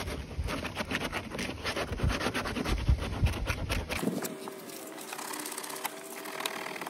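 Hand sanding of the hard plastic of a basketball hoop's water-fill base with 150-grit sandpaper, roughening the surface around a crack so that adhesive will grip: fast scratchy back-and-forth strokes that stop about four seconds in. A faint steady hum remains afterwards.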